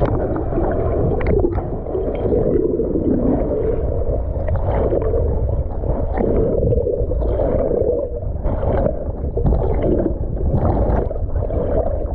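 Muffled rushing and gurgling of water heard through a camera held underwater, steady and dull with a few soft knocks. It starts and stops abruptly as the camera goes in and comes out of the water.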